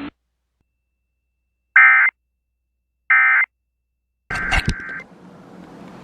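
Emergency Alert System SAME digital data bursts from a weather-radio alert: two short, shrill, screechy bursts about a second apart, then a longer burst with static behind it near the end.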